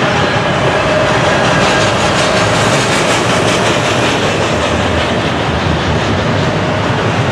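Double-stack intermodal well cars of a freight train rolling past close by: a loud, steady noise of steel wheels running on the rails, with a faint steady tone running through it.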